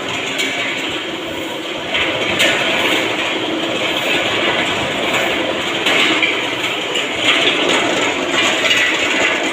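Steady mechanical clatter and rumble of machinery running continuously, with small irregular knocks.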